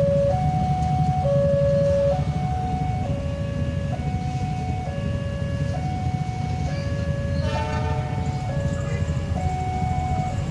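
Railway level-crossing warning alarm sounding a steady two-tone high–low pattern, the tone changing about once a second, over the low rumble of motorcycles idling at the closed crossing. About three-quarters of the way through, the approaching train's horn sounds briefly.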